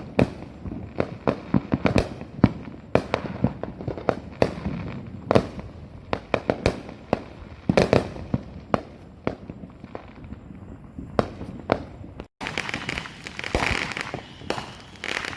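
Many fireworks exploding in quick, irregular succession: sharp bangs and booms, some near and some far, with echoing tails. About 12 seconds in the sound cuts out for an instant, then carries on with more crackle and fizz among the bangs.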